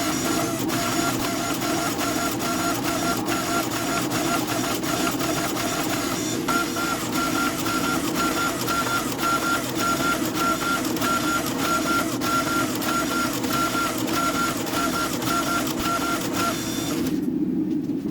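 Workshop machine running steadily, with a tone that pulses in an even rhythm a few times a second; it cuts out briefly near the end.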